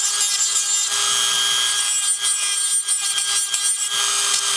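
Small rotary tool running with a cutter bit, grinding down the cut rivet stud on a die-cast toy car's chassis with a steady whine and rasp. The cutter is dull and losing its edge.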